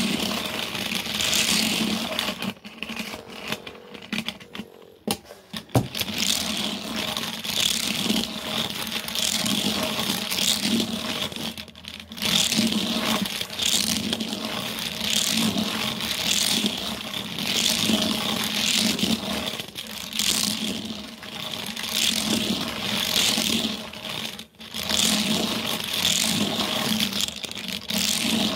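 Repeated rubbing and scraping of a hand and arm sweeping back and forth over carpet and plastic pieces, rising and falling about every second or two, with a few short pauses.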